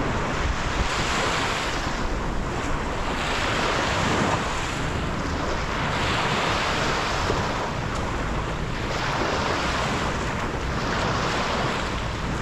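Small sea waves breaking and washing up a sandy shore, the surf swelling and fading every couple of seconds, with wind rumbling on the microphone.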